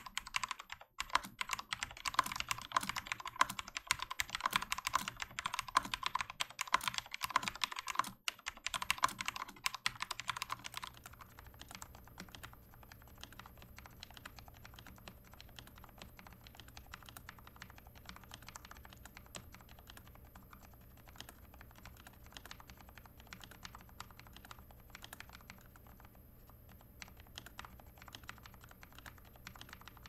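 Fast typing on a Corsair K70 MK.2 Low Profile mechanical keyboard with Cherry MX Low Profile Speed Silver linear switches. For about the first ten seconds the board is stock and louder. It then cuts to the same board with its switches lubed with Krytox 205g0 and foam in the case, where the typing is noticeably quieter.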